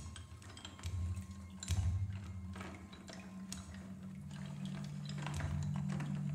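Sparse contemporary music for percussion and tape: low held tones swell in and overlap, with scattered light clicks and taps above them.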